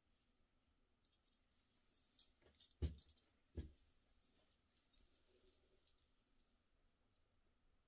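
Near silence: room tone with a few faint clicks and two soft thumps, a little under three and about three and a half seconds in.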